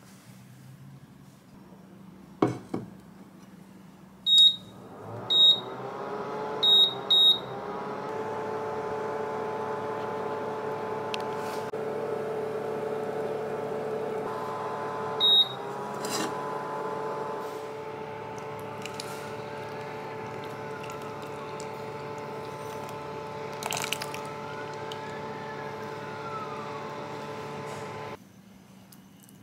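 Induction hob in use: a saucepan knocks down onto the glass top, the touch controls beep four times, and the hob starts heating with a steady electrical whine and hum. Another beep about halfway changes the whine's pitch, and the sound cuts off suddenly near the end.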